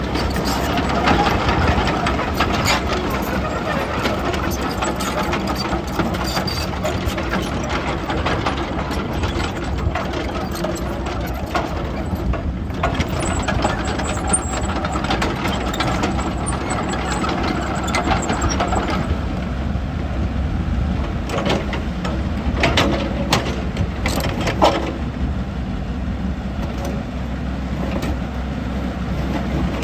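Diesel engine of a Komatsu PC88MR-10 hydraulic excavator running steadily, busier for the first two-thirds and then easing a little. Several sharp knocks come about two-thirds of the way through.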